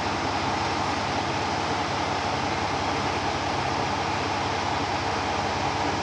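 JR Shikoku KiHa 54 diesel railcar's engine idling steadily, an even rumble with a hum around it.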